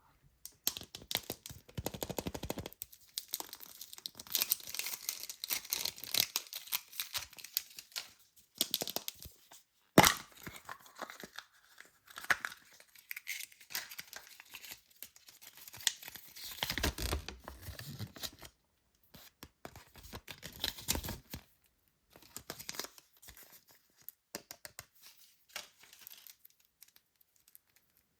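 Toy packaging being torn open and crinkled by hand, a dense crackling of many small tears and rustles. A single sharp snap comes about ten seconds in, and the handling thins out to scattered ticks near the end.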